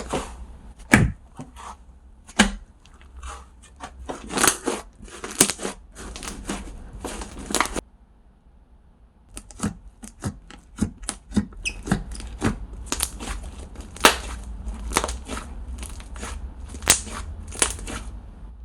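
Slime being squished, poked and pressed close to a microphone, giving dense, irregular sticky clicks and crackles. It pauses briefly about eight seconds in, then starts again.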